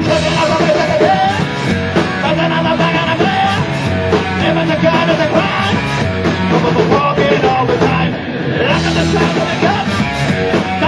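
Live rock band playing loudly: electric guitar over a drum kit, a dense, driving full-band sound that thins briefly about eight seconds in.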